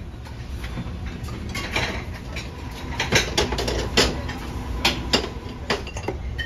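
Buffet-room clatter: dishes, glasses and cutlery clinking in a run of sharp, separate clinks, most of them in the second half, over a steady low hum of the room.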